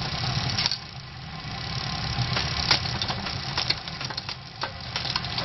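Road bike drivetrain running as the cranks are turned, the chain rolling over the cassette with a steady hum, and several sharp clicks as the Shimano rear derailleur shifts the chain from cog to cog.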